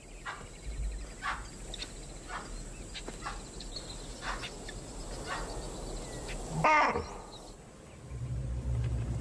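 Wild animal alarm calls in woodland: a run of short sharp calls, then one louder wavering call about seven seconds in. A low steady hum comes in near the end.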